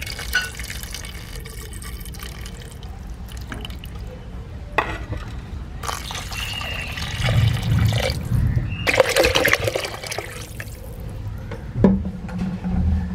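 Liquid poured into a metal cooking pot of fried onions, tomatoes and green chillies: first tamarind juice, then water. The pouring comes in several louder stretches through the middle, and there is a sharp knock near the end.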